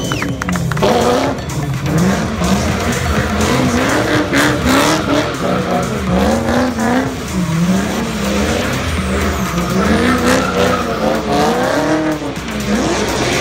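Drift car's engine revving up and down over and over, about once a second, with tyres squealing as it slides in circles.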